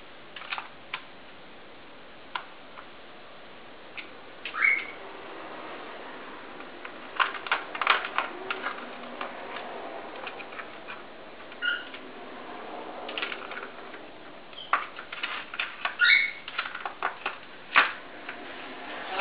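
A ball rolling and rattling in a plastic cat track toy as a ferret paws and noses it, with many sharp clicks and taps on the plastic that come in clusters. A few short high squeaks are also heard.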